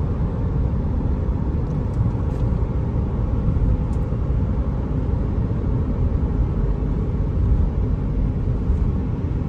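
Steady low rumble of tyre and engine noise inside a car cruising at speed on smooth new pavement.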